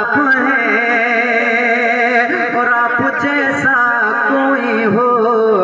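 Man singing a naat into a microphone, drawing out long wavering notes in a melismatic line.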